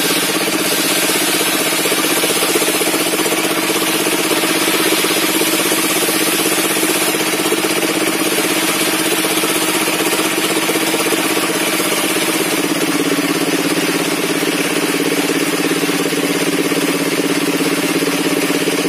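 Engine-driven circular saw table running steadily, a continuous machine drone with a hiss of the blade over it; the note dips slightly about two-thirds of the way through.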